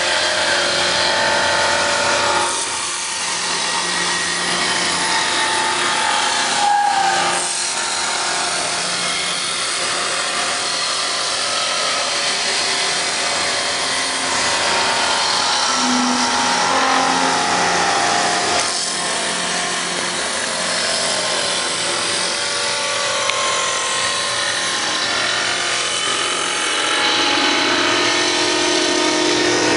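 Chiun Fong CBL-1150H automatic hydraulic back-knife wood-turning lathe running, its knives cutting a spinning wooden blank into a turned spindle profile. The cutting noise is steady, with its pitch shifting as the knife moves along the workpiece.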